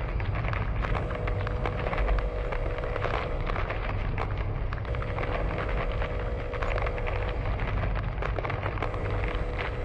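Earthquake sound effect: a continuous deep rumble with dense crackling and rattling throughout. A faint steady hum fades in and out every few seconds.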